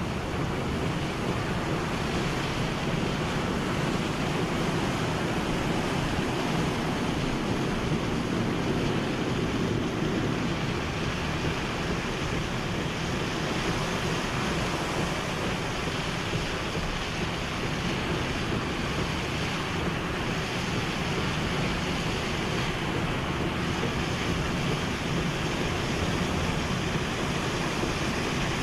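Hurricane wind and heavy rain: a steady, loud rush of noise that does not let up.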